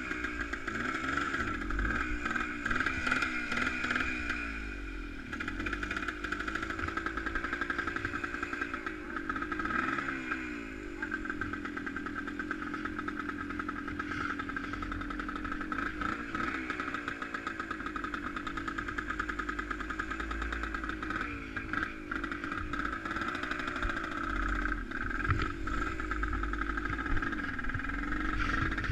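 Vehicle engine running under way, its pitch dipping and rising again several times as the throttle is eased and opened.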